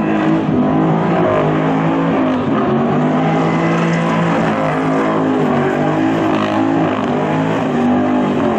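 Holden Commodore HSV Clubsport V8 held at high revs during a burnout, rear tyres spinning and smoking. The engine note stays high and steady, wavering slightly in pitch as the throttle is worked.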